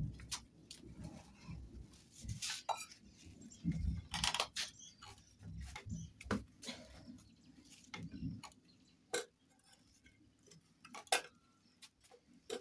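Metal cooking pots, basins and bowls being handled, giving scattered clinks and knocks with soft thuds between.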